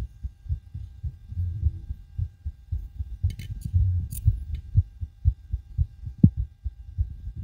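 Human heartbeat picked up through a homemade stethoscope microphone, beating fast and hard, raised by the exertion of backflips on a trampoline. A few brief clicks come near the middle, and there is one sharper thump near the end.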